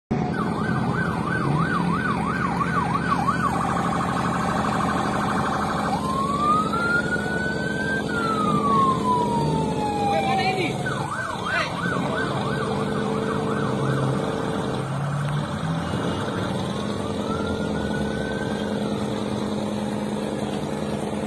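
Electronic emergency siren sounding continuously, cycling through modes: a fast warbling yelp, a held steady tone, then a slow rising and falling wail, with the cycle starting again about halfway through. A steady low hum runs underneath.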